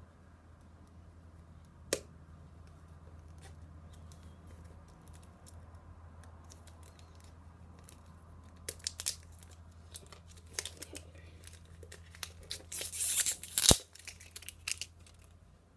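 Plastic film wrap being picked at and torn off an iPhone box, crackling and crinkling in bursts from about halfway, loudest near the end. There is a single sharp tick about two seconds in and a sharp knock shortly before the end.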